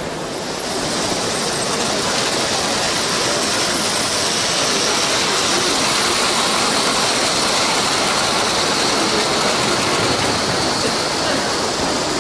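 Model train running along the layout's track: a steady whirr of motor and wheels on rail that grows louder about a second in as it comes close, then holds.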